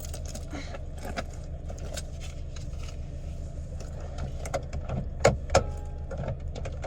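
Car cabin noise while driving: a steady low road-and-engine rumble with light rattles and clicks, and two sharper knocks a third of a second apart about five seconds in.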